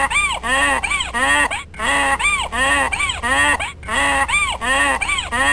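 Donkey braying: three bursts of short, rising-and-falling calls, each burst about two seconds long.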